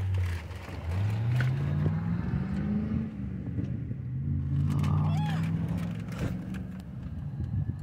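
Car engine accelerating: its pitch rises over about two seconds, drops at a gear change, climbs again and then eases off.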